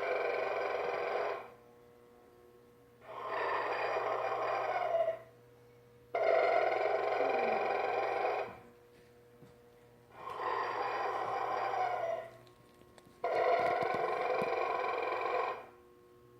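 Snoring Santa toy making its mechanical snore: about five buzzy snores, each roughly two seconds long, repeating every three and a half seconds or so, over a steady low hum.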